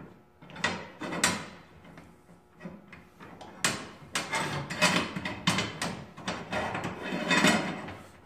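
Metal guide rod of a PhenoX Speed Bar being jostled and angled into the holes of a steel rack frame: irregular metal clicks, knocks and scrapes, a few at first and busier from about the middle on.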